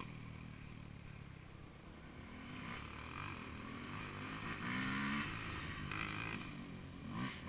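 Dirt bike engines idling steadily, with another dirt bike revving up and down in the distance a few times, most clearly about five seconds in.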